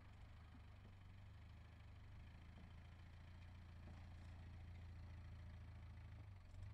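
Faint, low, steady running of a Land Rover 300Tdi turbodiesel engine at low revs as the vehicle crawls over rough ground, growing slightly louder over the seconds.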